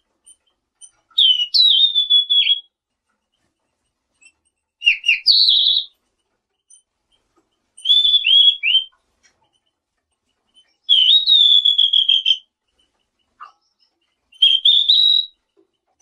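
A selendang biru songbird singing: five short phrases of high whistled notes, each about a second long, with pauses of a couple of seconds between them.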